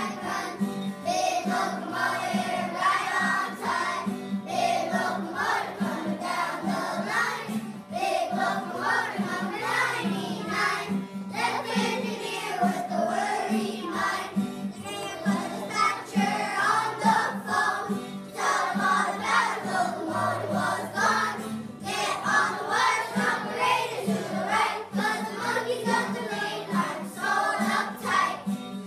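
A class of young children singing together in unison, over a steady low accompaniment.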